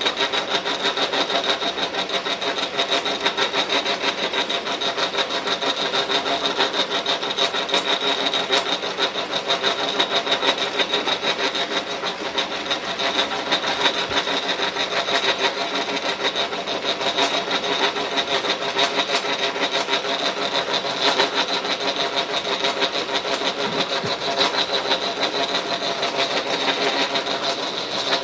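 Milling machine cutter taking a steady cut into a metal bar, a continuous rasping, grinding noise with a high steady whine on top.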